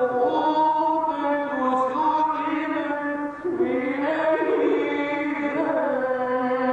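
Male reciter chanting the Qur'an in the melodic mujawwad style, drawing out long, ornamented held notes that slide up and down in pitch, with a short break for breath a little past halfway.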